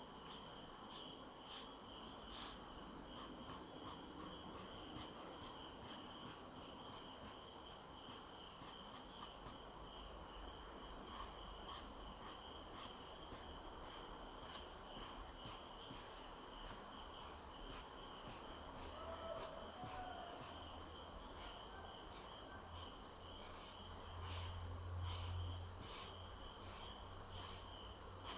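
Crickets chirping faintly and steadily, with a low rumble that swells briefly near the end.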